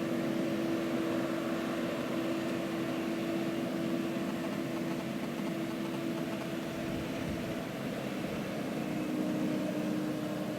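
Massey Ferguson tractor's diesel engine running steadily with an even hum, its note shifting slightly about three quarters of the way through.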